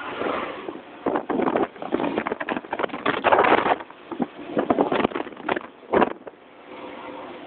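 Traffic and wind rushing in uneven, loud gusts, as of trucks going by or wind buffeting the microphone, easing near the end to a steadier low vehicle hum.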